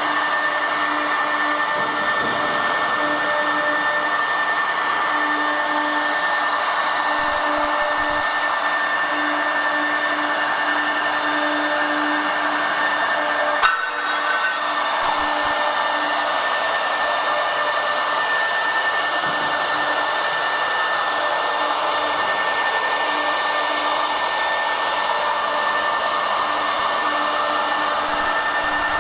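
Double-head CNC router spindles running steadily while engraving MDF: a steady whine over a dense hiss. A brief sharp click comes about halfway through.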